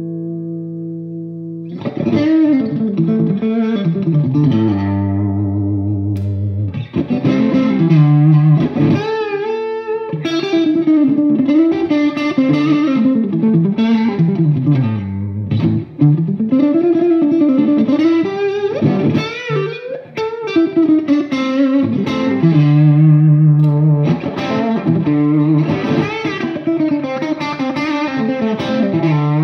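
Electric guitar played through a Bogner Super Shiva valve amp head into a Friedman speaker cabinet. A chord rings out, then about two seconds in a sustained single-note lead line starts, full of string bends and vibrato.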